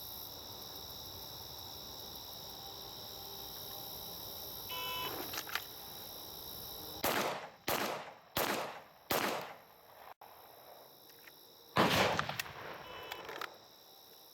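A short electronic beep, typical of a shot timer's start signal, then four handgun shots, evenly spaced a bit under a second apart. A louder, longer noise follows near the end. Insects chirp steadily underneath.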